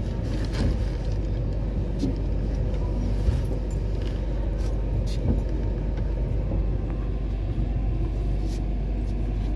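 Train running slowly through a station, heard from inside the coach: a steady low rumble with a few faint clicks.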